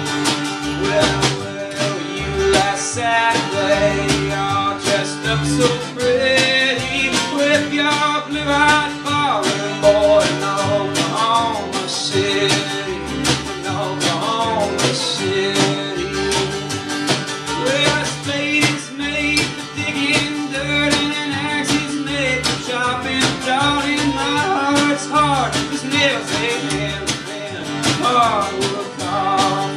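Live country band playing: a man singing lead over strummed acoustic guitar, fiddle, upright bass and a strapped-on bass drum keeping a steady beat.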